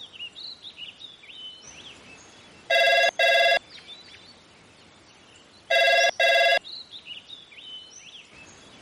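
A phone ringing twice with a double-pulse ring, each ring two short electronic tones about three seconds apart. Birds chirp faintly between the rings.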